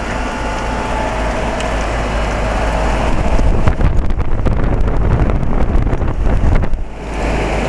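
2004 Carrier 3-ton heat pump outdoor unit running in cooling mode, its compressor and condenser fan making a steady hum with a few faint steady tones. Wind buffets the microphone for a few seconds in the middle.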